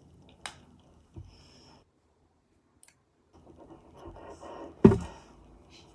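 Hands handling a small biscuit over paper: faint scratching and rustling, a click and a soft knock early on, then more rustling that ends in one sharp knock a little before five seconds in.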